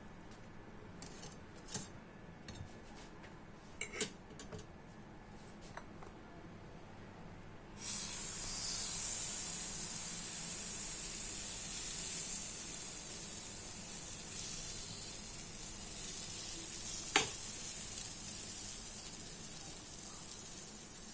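A metal spatula and fork clink a few times as a waffle is lifted off the electric waffle maker. About eight seconds in, batter poured onto the hot waffle plates starts sizzling and keeps up a steady hiss, with one sharp tap later on.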